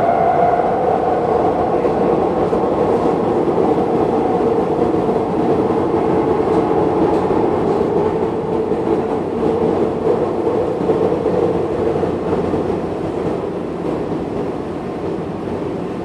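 Metro light-rail train running, heard from inside the passenger car as a steady rumble and rush of wheels and motors. A motor whine fades out in the first second. The running noise slowly drops toward the end as the train slows approaching a station.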